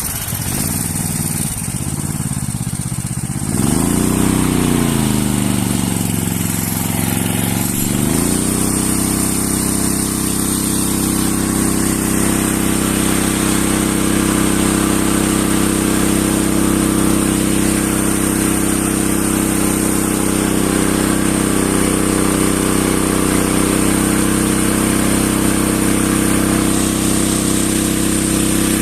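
Yamamoto 28 hp engine of a 4-inch fire-fighting water pump under test. Its speed dips and climbs for about the first eight seconds, then it runs steadily at high speed.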